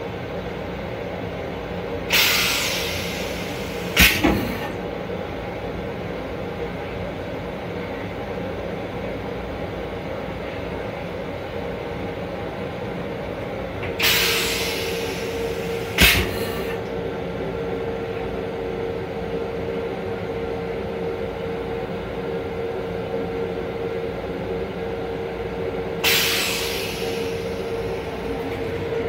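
The toilet in an M7 railcar flushes three times, about twelve seconds apart. Each time, rinse water hisses into the stainless-steel bowl and fades over about two seconds, and the first two flushes end in a sharp clunk. Under it all is a steady hum of the railcar.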